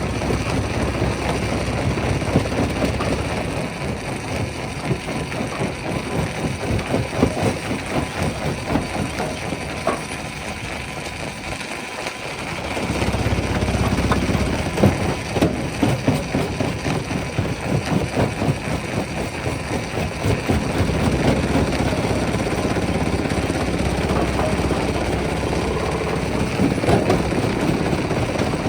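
Rock crushing machine running, a steady engine drone under a dense, irregular clatter and cracking of stone being broken. The low drone drops away briefly about halfway through, then comes back.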